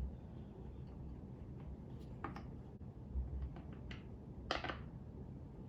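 Screws being tightened by hand with an assembly tool: a few scattered light clicks and scrapes of metal, the sharpest cluster a little past four seconds in, with a soft low thump just after three seconds.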